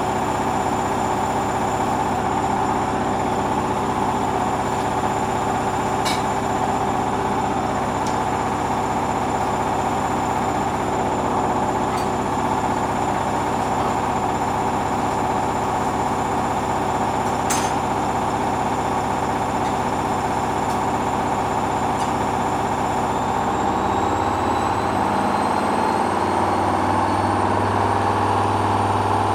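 Hoover washing machine in its final spin, motor whine and drum running steadily with a few sharp clicks, then the pitch rising about three-quarters of the way through as the drum speeds up. The load is very unbalanced and the distribution keeps failing.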